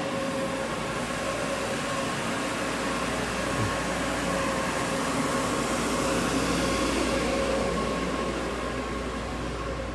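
Quest PowerDry 4000 commercial dehumidifier running: a steady fan rush with a constant hum, growing louder toward the middle and easing off near the end.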